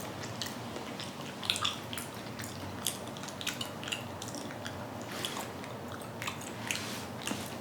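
A person chewing raw chicken: irregular wet, squishy mouth clicks and smacks.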